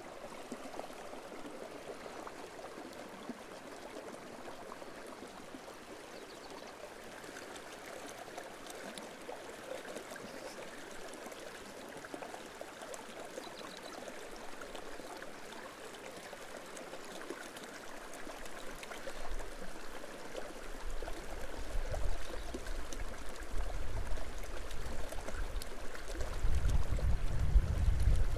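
Mountain river water running steadily. About two-thirds of the way in, a low rumble comes in and grows louder toward the end.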